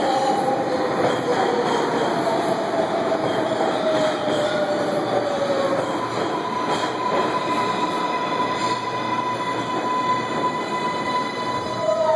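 Kawasaki R142A subway train braking into the station: wheels rumbling on the rails under a whine from its AC traction propulsion that falls in pitch as the train slows, then a steady high tone as it comes to a stop.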